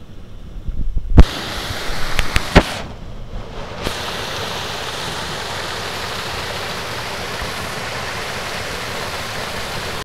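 Water pouring over a small dam wall into a creek: a steady, loud rush. About a second in, a few sharp clicks and knocks cut in over the sound of the falls.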